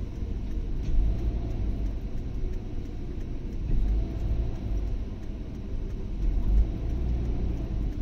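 Car in motion heard from inside the cabin: a steady low engine and road rumble, swelling briefly a few times.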